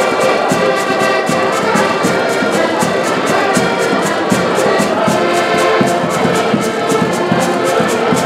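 Ensemble of accordions and concertinas playing a tune together: sustained reedy chords over a steady, regular beat.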